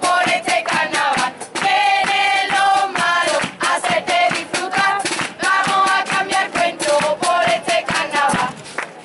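Andalusian carnival group singing a song together in chorus, with drums beating a steady rhythm under the voices.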